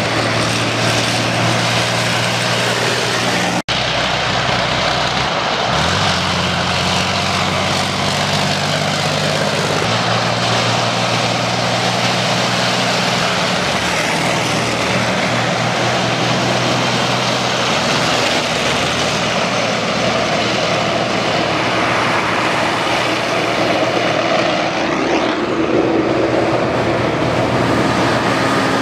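Heavy military vehicles of a column driving past close by, their engines running in a steady loud drone whose pitch shifts as each vehicle goes by. The sound cuts out for an instant about three and a half seconds in.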